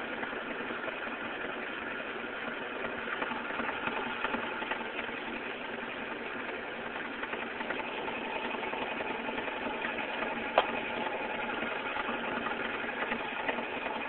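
Electric vacuum pump running steadily, pulling gas off an electrolysis cell that is gassing so hard the pump can only hold about 24 inches of mercury. A single sharp click comes about three-quarters of the way through.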